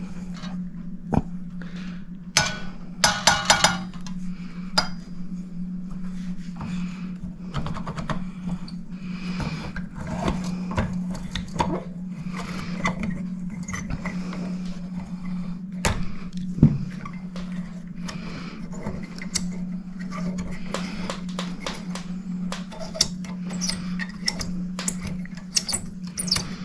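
Small metal parts and screws of a clock case clinking, scraping and knocking as they are worked loose and handled, with a brief metallic ringing about three seconds in. A steady low hum runs underneath.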